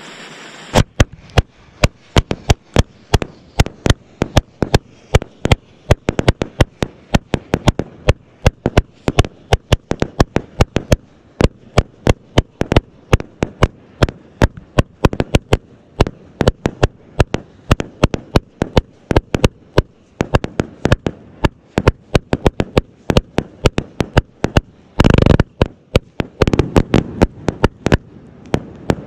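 Astroboy Fireworks Dempsey Roll, an 81-shot 1.3G salute cake, firing: a rapid string of sharp bangs, about three a second. About 25 seconds in, a half-second rush of overlapping bangs comes, and the firing stops just before the end.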